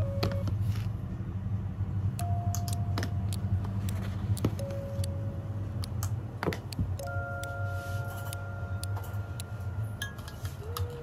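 Scattered clinks and light clatter of cups and utensils being handled, over a steady low hum, with soft background music notes.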